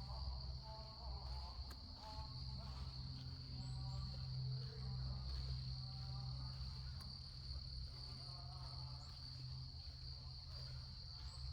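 A steady, high-pitched chorus of insects trilling without a break in a forest, with faint voices talking in the background and a low rumble underneath.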